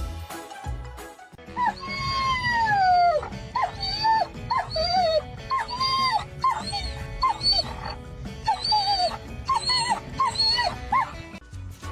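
A pet calling repeatedly over background music: one long falling call about two seconds in, then a string of short calls.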